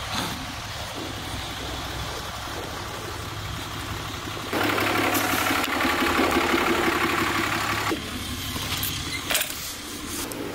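Pickup truck engine idling, a steady low hum that grows louder and fuller for about three seconds in the middle, then drops back. A few sharp clicks near the end.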